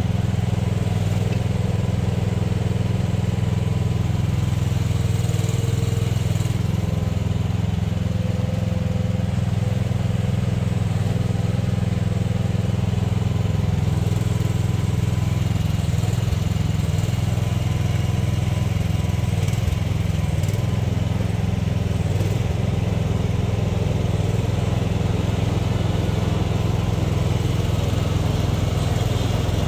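Chery one-ton mini excavator's Briggs & Stratton 13.5 hp engine running steadily under load as the boom and bucket dig.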